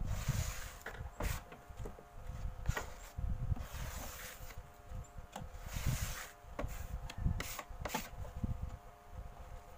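Rag rubbing wood finish into a plywood board in repeated hand strokes, with scattered light clicks and knocks.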